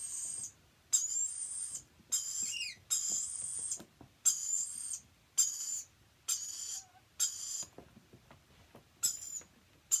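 Young lorikeet giving high, raspy food-begging calls while being syringe-fed, each under a second long, about once a second, with a short pause near the end.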